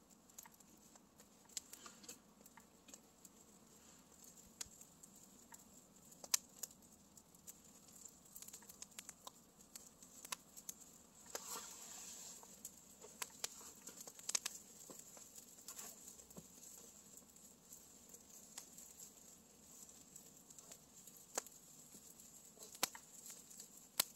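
Wood campfire crackling, with irregular sharp snaps and a brief hiss about halfway through.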